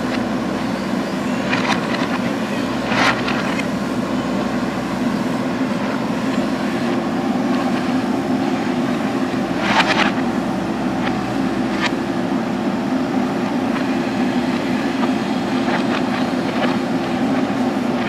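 JCB backhoe loader's diesel engine running steadily under load while the backhoe arm digs, with a few short, sharp clanks from the arm and bucket scattered through.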